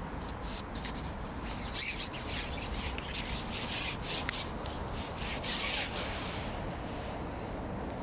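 Carbon match-fishing pole being shipped out, its length sliding and rubbing along as it is pushed out over the water. It gives a run of uneven rasping scrapes, loudest from about two to six seconds in.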